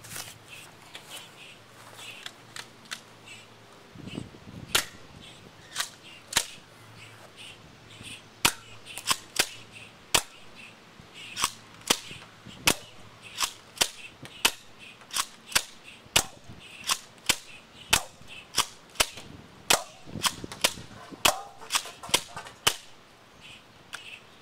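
Airsoft shotgun being fired again and again: dozens of sharp pops at roughly one to two a second, starting about four to five seconds in and stopping shortly before the end.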